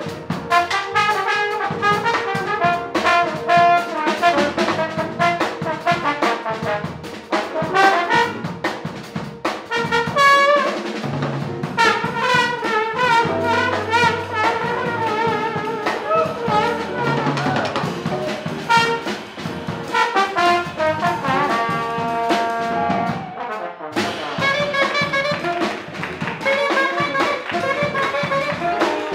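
Live jazz combo: a trombone solo over electric bass, electric guitar and drum kit. Near the end the trombone drops out and an alto saxophone takes over the lead.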